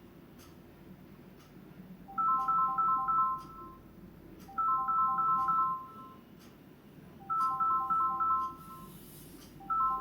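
Electronic ringtone or alarm melody: a quick run of bright beeping notes that plays for about a second and a half, then repeats after a short pause, four times in all.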